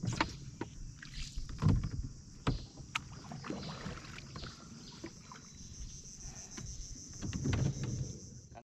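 Hand paddle dipping and pulling through calm water beside a small boat's hull, with irregular splashes and light knocks, over a steady high chorus of insects. The sound cuts off suddenly near the end.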